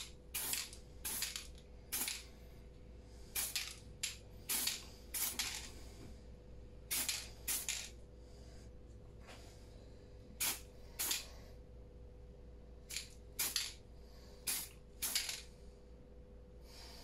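Aerosol rattle can of Wilko primer spraying in short bursts, about twenty quick hisses of a few tenths of a second each with brief pauses between, laying down a light coat of primer on a small diecast car body.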